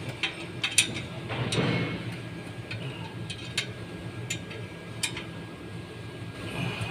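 Scattered metallic clicks and clinks of a hand wrench being worked on the turbocharger's mounting nuts, with a brief scraping rustle about a second and a half in.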